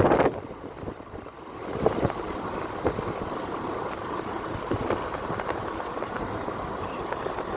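Steady rushing road and wind noise from a moving car, with wind buffeting the microphone in surges.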